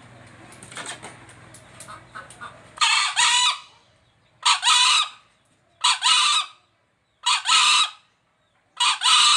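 Green junglefowl crowing: five short two-part crows, each under a second, repeated about every second and a half starting about three seconds in, after a few faint clicks.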